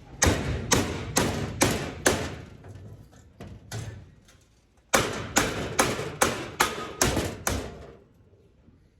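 Hammer blows on steel being bent into a curve: a run of five sharp strikes about two a second, two lighter taps, then seven more strikes at the same pace.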